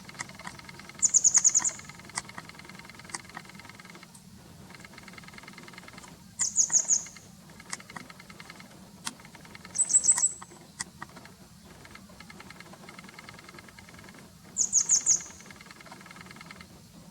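Grey wagtail calling: four short bursts of rapid, high, sharp notes, a few seconds apart, over a faint steady hum.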